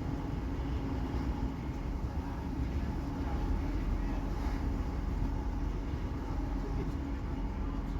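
Steady running noise heard aboard a Class 158 diesel multiple unit under way: low rumble of the underfloor diesel engine and wheels on the rails, with a steady drone.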